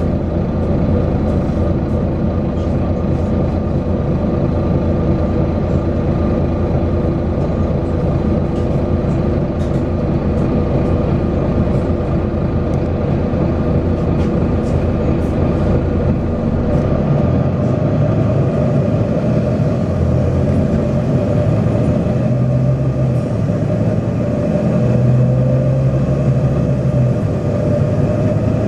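Volvo B9TL double-deck bus's diesel engine running steadily under way. Its note shifts about two-thirds of the way through and rises near the end.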